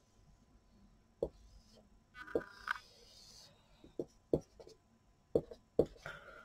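Marker pen drawing straight lines on a board: short scratchy strokes with brief squeaks, and several sharp taps as the tip touches down and lifts off.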